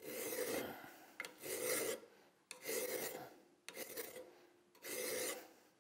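Hand file rasping crossways across the metal grip frame of a Ruger single-action revolver: about five separate strokes, roughly one a second, cutting a Colt-style backstrap that stands a few thousandths proud down flush with the frame.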